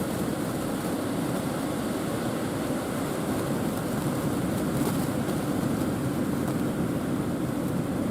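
Strong wind and surf heard as a steady, unbroken rushing noise, with the wind rumbling on the microphone.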